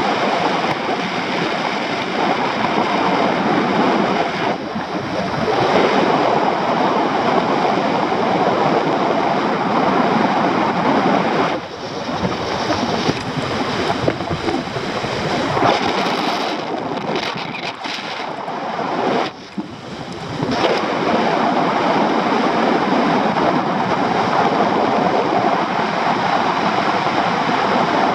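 Airflow rushing over the microphone of a paraglider's camera in flight: a loud, steady rush of wind noise that drops away briefly a few times.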